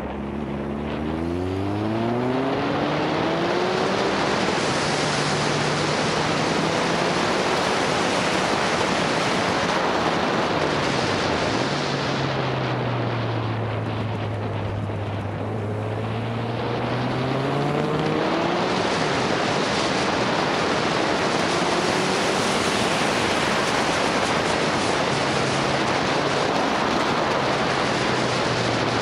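Motorcycle engine under way with heavy wind rushing over the microphone. The engine note climbs over the first few seconds, sinks and climbs again around the middle, then is mostly buried in the wind noise.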